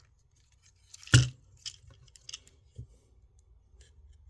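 Plastic clicks and clacks from a War for Cybertron Ratchet Transformers figure being handled and its parts folded during transformation, with one loud, sharp click about a second in and a few lighter ones after.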